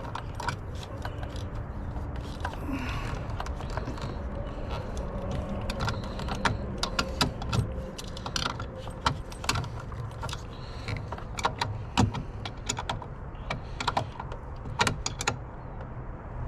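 Irregular metallic clicks and clinks of a hand tool tightening a nut on a winch cable's terminal post, over a low steady hum.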